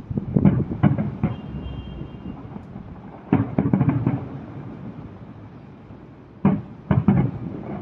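Firecrackers going off in three bursts of sharp bangs: a few in quick succession near the start, a cluster a little after three seconds, and another group near the end.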